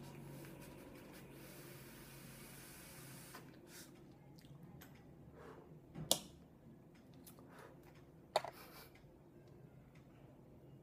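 A long draw on an e-cigarette box mod: a faint hiss of air and vapour through the atomizer for about three seconds, then a breath out of the vapour cloud. Two sharp taps follow, about six and eight seconds in.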